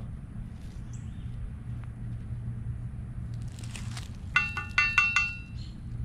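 A brief scrape, then four quick metallic clinks in about a second, ringing with several high tones, as a small brass buckle is knocked against a steel hand trowel.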